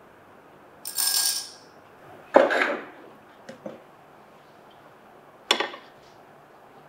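Coffee brewing gear being handled on a counter: a brief rushing noise about a second in, then a sharp knock of glassware set down, a couple of small clicks, and a clink near the end as a glass Hario V60 dripper is fitted into its olive-wood holder.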